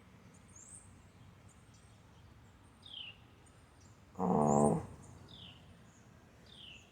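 Faint songbird chirps outdoors: several short, high chirps that fall in pitch, repeated every second or two, with fainter, higher rising notes between them.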